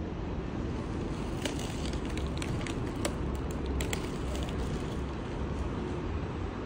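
Hanshin 5001-series electric commuter train standing at the platform, its underfloor equipment running with a steady low hum. A short run of sharp clicks comes from about a second and a half to four seconds in.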